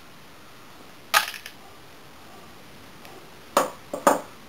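Sharp metallic clicks of pliers and wire being handled on a wooden tabletop. There is one click with a short rattle about a second in, then two more about half a second apart near the end.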